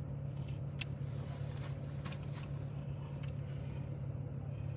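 Steady low hum inside a car's cabin, with a few faint short clicks.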